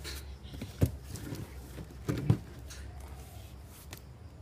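A baby's hands knocking and patting on cardboard boxes: a few dull thumps, the loudest a little over two seconds in.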